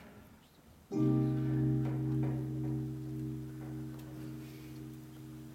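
A single low keyboard chord comes in about a second in and is held, slowly fading, after a near-silent moment.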